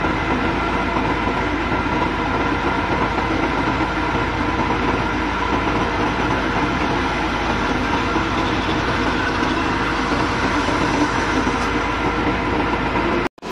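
Heavy earthmoving machine's diesel engine running steadily at close range, a dense, even clatter with steady engine tones. It cuts out briefly near the end.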